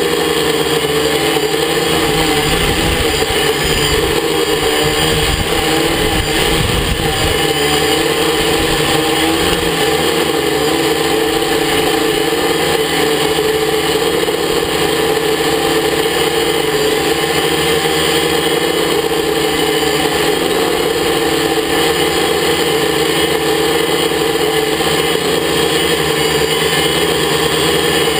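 A quadcopter's electric motors and propellers buzzing steadily overhead, heard from a camera slung beneath it. For the first several seconds a low, gusty rumble of wind buffets the microphone.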